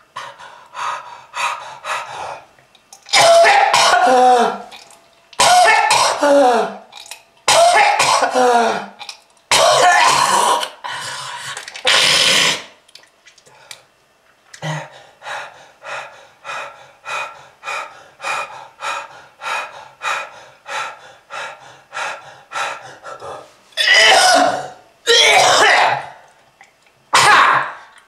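A person coughing hard: long hacking fits with the voice sliding down in pitch, then a run of short regular coughs at almost two a second, then two more heavy fits near the end. A heavy smoker's cough.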